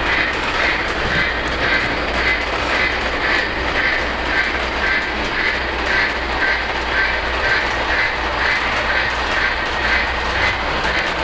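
Lionel LionChief Elf Work Train, an O-gauge model steam locomotive, running along the track pulling nine cars: a steady rumble of wheels and motor with its chuffing sound effect about twice a second.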